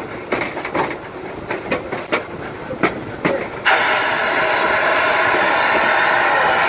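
Passenger-car wheels clicking unevenly over rail joints. About four seconds in, a loud steady hiss starts suddenly: the steam locomotive's boiler blowdown, blasting water and steam out of the side of the boiler to clear sediment.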